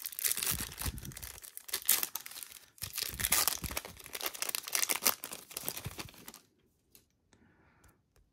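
Foil wrapper of a Topps Chrome trading-card pack being torn open and crinkled in two long stretches, with a short break between them. It stops about six and a half seconds in, leaving only a few faint clicks.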